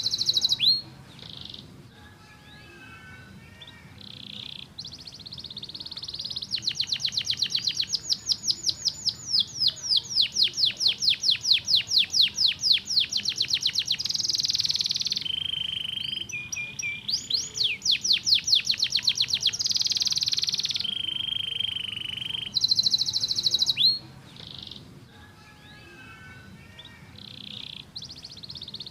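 Domestic canary singing a long, loud song: held whistled tones alternate with rapid rolls of repeated sweeping notes, with softer, quieter twittering after the first second and again near the end.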